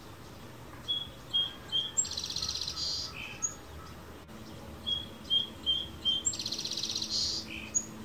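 A songbird singing the same short song twice, about four seconds apart: three or four clear, evenly spaced notes, then a loud buzzy trill and a lower closing note.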